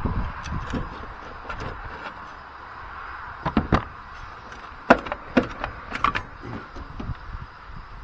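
Sheet-metal clicks and clanks as the loosened cover panel is worked off the control box of an old rooftop RV air conditioner. The sharp metallic clicks come in a cluster from about halfway through, the loudest just before the five-second mark.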